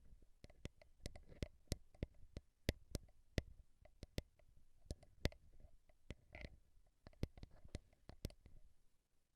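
Slow, irregular ASMR taps and clicks close to the microphone, about two or three a second, each with a soft low thump; a brief scratchy rub about six seconds in.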